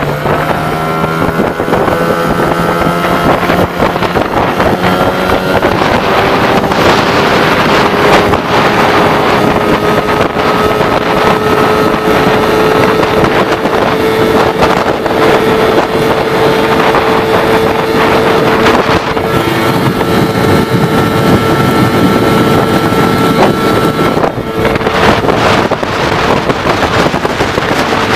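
Johnson 15 hp outboard motor driving an aluminum jon boat at speed. Its pitch rises over the first several seconds as the boat picks up speed, then holds steady, with wind on the microphone.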